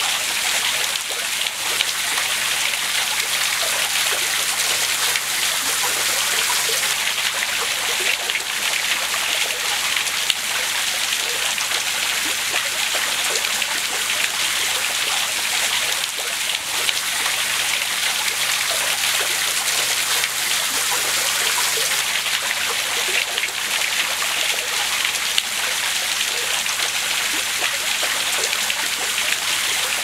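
Running water splashing and trickling steadily. Its tone shifts abruptly a few times.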